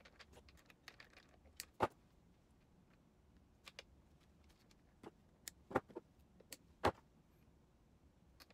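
Scattered sharp clicks and knocks of hands handling plastic ink-supply tubes and connectors on an HP OfficeJet Pro 8710 inkjet printer, sped up to four times speed. The loudest knocks come about two seconds in and again around six to seven seconds in.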